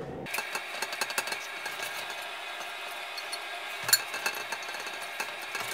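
Rapid small clicks, taps and clinks from hands handling a toilet tank and its fittings, thin-sounding with no low end, with one sharper click about four seconds in.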